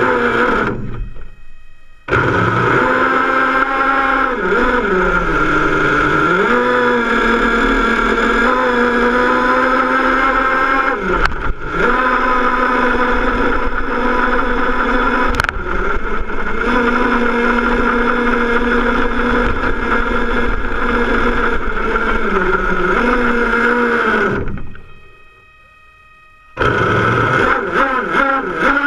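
Off-road RC car's motor running close to the camera with a steady high whine, its pitch dipping and climbing back a few times as the throttle is eased and opened. It drops out briefly twice.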